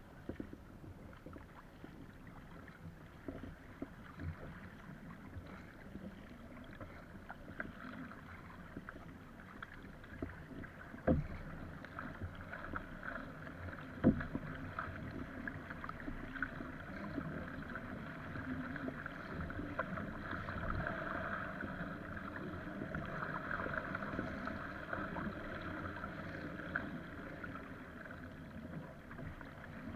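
Water splashing and rushing along the hull of an Epic V7 surfski as it is paddled through choppy waves, with the splash of paddle strokes. Two sharp knocks come about three seconds apart near the middle, and the water rush grows louder in the second half.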